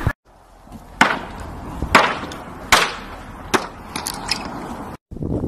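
Sharp wooden knocks as boards are handled on pavement: four loud knocks less than a second apart, then a few lighter ones.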